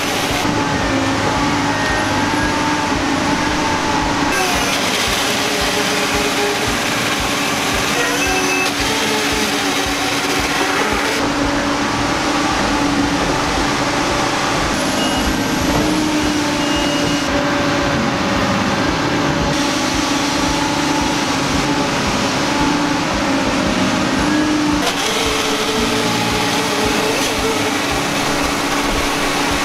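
Heavy diesel logging machinery running steadily at a log deck: a delimber and knuckleboom loader's engines and hydraulics, the engine tone shifting as they work. The sound changes abruptly several times.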